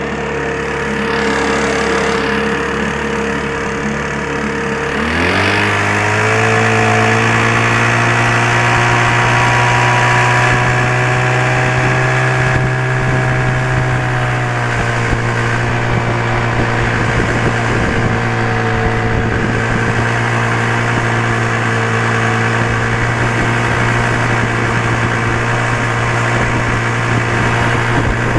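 Veterok-12 two-stroke outboard motor running at low speed, then opened up sharply about five seconds in to a higher, steady speed, easing back a little about halfway through.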